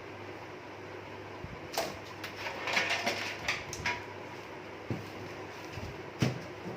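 A hard disk being fitted into the metal drive bay of a desktop computer cabinet: a run of scraping and clicks from about two to four seconds in, then a single sharp click near five seconds and another near six.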